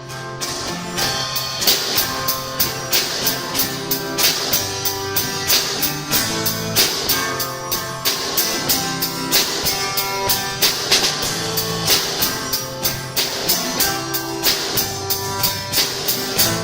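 Instrumental gospel music: a band with guitar and drum kit playing, with a steady beat of about three strikes a second.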